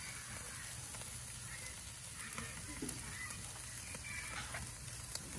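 Mackerel scad sizzling on a grill grate over hot charcoal: a steady hiss with scattered faint crackles.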